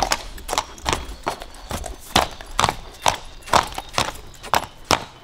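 A horse's hooves striking cobblestones at a prancing, high-stepping gait: a steady rhythm of sharp clip-clops, about two a second.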